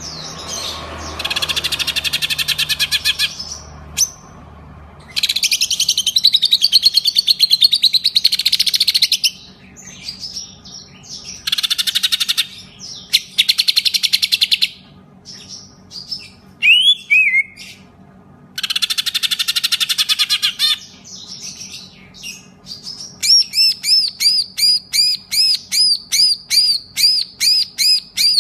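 Greater green leafbird (cucak ijo) singing. It gives long, rapid chattering trills that mimic a lovebird's 'ngekek' trill, broken by short pauses and single calls. Near the end it switches to a steady run of looping whistled notes, about three a second.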